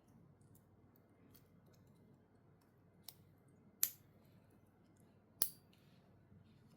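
Sharp clicks from a watch and its packaging being handled: a light click, then two loud snaps about a second and a half apart, over a few faint small clicks.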